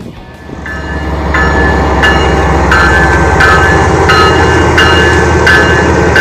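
Diesel freight locomotive running close by, its engine a steady low rumble that grows louder over the first second. A short ringing tone repeats about every three quarters of a second over the rumble.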